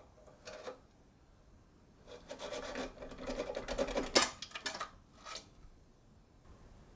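A cross-lock rake being worked in a short-cylinder cross lock's keyway: rapid scraping and rasping strokes for about three seconds. A sharp click comes about four seconds in and another shortly after, as the cam lock turns and the safe opens.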